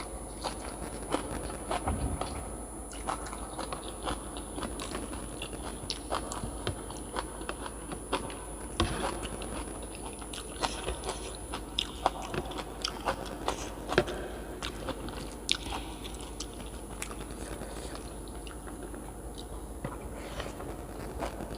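A person eating: irregular bites and chewing with many small sharp crunchy clicks.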